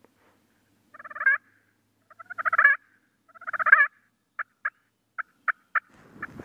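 Wild turkey gobbler gobbling close by, three loud rattling gobbles about a second apart, then a string of about six short sharp notes.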